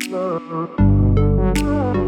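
Electronic background music: synthesizer tones over a beat, with a deep bass that comes in a little under a second in.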